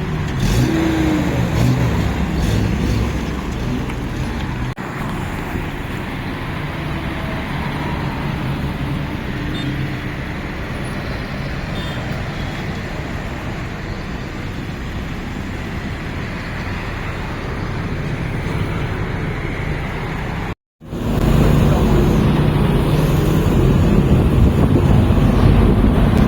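A motor vehicle running with steady engine hum and road noise. It cuts out abruptly about 20 seconds in and comes back louder.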